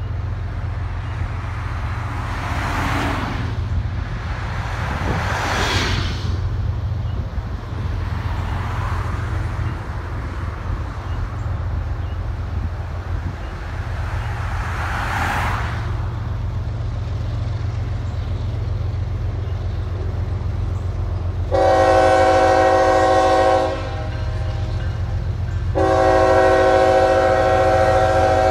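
CSX diesel freight locomotive approaching with a steady low engine rumble, then sounding its multi-chime air horn twice, late on: one blast of about two seconds, then a longer second blast a couple of seconds later. Two long blasts like this open the standard grade-crossing horn signal.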